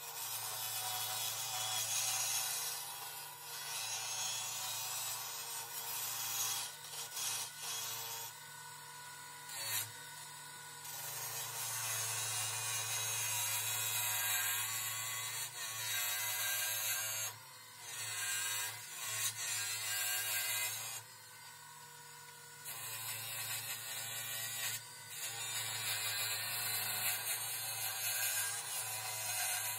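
Wood lathe spinning a canary wood handle blank while a turning gouge cuts it, a steady motor hum under a hissing, scraping cut. The cutting noise stops briefly several times as the tool lifts off, about a third of the way in, midway and near two-thirds, while the lathe keeps running.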